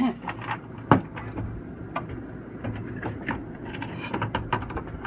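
Irregular clicks and knocks of plastic refrigerator parts being handled and fitted back in place, with a sharper knock about a second in, over a steady low hum.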